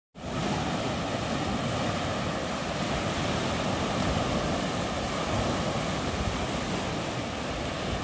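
Lake Michigan waves washing ashore in a steady rush, with wind buffeting the microphone.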